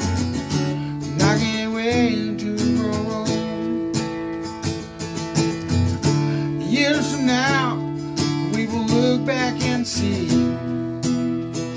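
Acoustic guitar strummed steadily in chords, with a man's voice singing a few drawn-out, wavering phrases over it at times.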